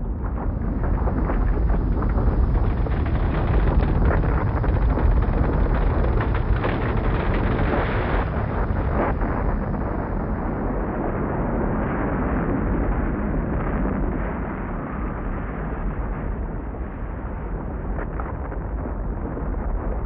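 Loud, continuous low rumbling with scattered knocks and rattles, the sound of ground shaking in a strong earthquake recorded on camera. It eases a little in the second half.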